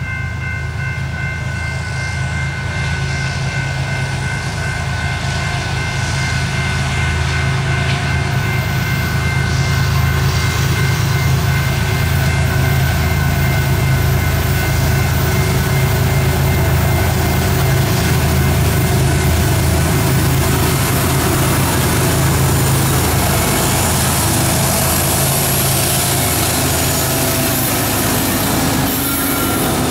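Two BNSF diesel locomotives approaching at the head of a grain train: a deep engine rumble that grows louder over the first ten seconds or so and then holds as the units draw near. A steady distant horn chord fades out in the first few seconds.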